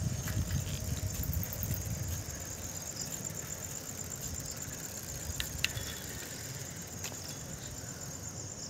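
Crickets chirping in a steady, high, rapidly pulsing trill. A low wind rumble on the microphone from riding a bicycle fades out after about two seconds, and a few light clicks come near the middle.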